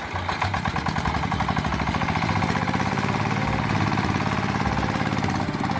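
A small motor running steadily with a fast, even chatter of about eight beats a second.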